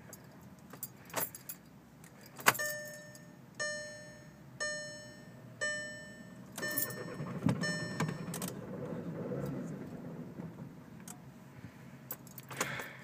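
Inside a 2011 Volkswagen Jetta TDI during an attempt to start a car that will not start: keys jangle and click in the ignition, then a dashboard warning chime sounds six times, about once a second, each tone dying away. A low rumble runs for a few seconds under the last chimes, then fades.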